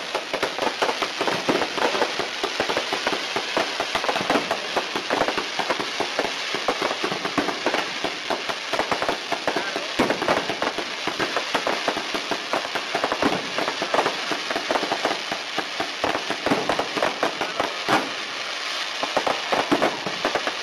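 Fireworks going off: a dense, continuous crackle of many small bangs and pops as rockets rise and burst overhead, with a sharper single bang about ten seconds in and a louder one near eighteen seconds.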